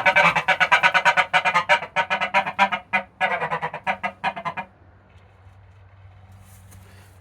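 A domestic gander honking in a fast, insistent series of short calls while guarding his goose house. The calls stop abruptly about two-thirds of the way through.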